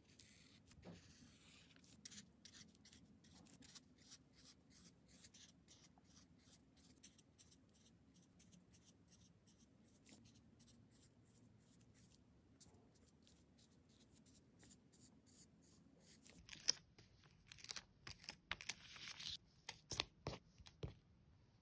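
Felt-tip marker drawing short strokes on paper: faint, quick ticks and scratches of the pen tip. About three-quarters of the way in, louder clicks and short crinkly rustles take over as paper stickers are handled and pressed onto the page.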